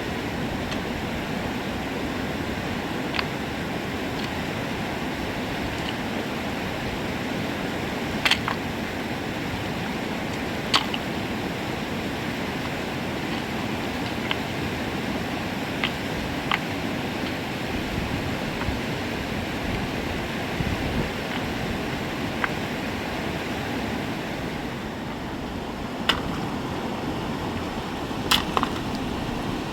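Steady rush of flowing river water, with a few sharp clicks or knocks scattered through it, the clearest about eight, eleven, twenty-six and twenty-eight seconds in.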